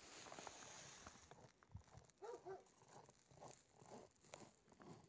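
Faint dog barking a couple of times around the middle, in otherwise near-quiet surroundings.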